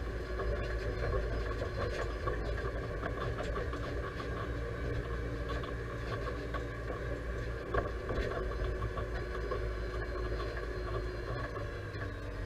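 Deutz-Fahr 5100G tractor's diesel engine running steadily while the tractor drives along a dirt track pulling a hay trailer, heard from inside the cab. Light rattles and knocks run through it, with one louder knock about eight seconds in.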